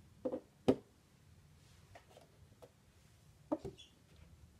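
Light knocks and taps of disc cases and a box set being handled and set down on a tabletop: two quick taps just after the start, the loudest knock under a second in, and another pair of taps about three and a half seconds in.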